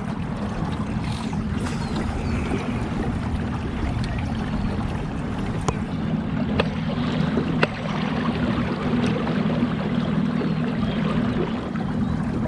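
Boat motor running steadily, a low even hum under a wash of water and wind noise, with a few sharp knocks near the middle.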